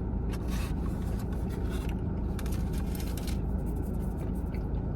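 Crunchy bites and chewing of a Korean corn dog coated in crushed Hot Cheetos, in several short crackly bursts, over a steady low hum.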